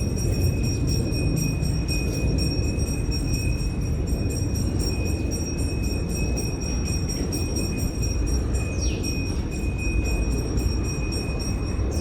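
Steady roar of rushing water, with a thin high steady tone over it and a short falling bird call about nine seconds in.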